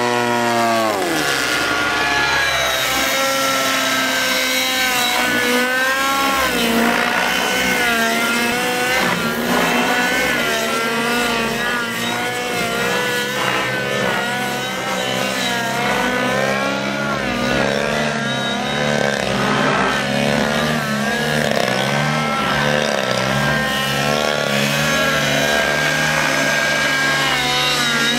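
Radio-controlled model aircraft engines buzzing, a model biplane and a model helicopter flying together. It opens with a sharp drop in pitch as the plane passes close, then the high engine buzz keeps sweeping up and down in pitch as the plane manoeuvres, over a steadier, lower drone.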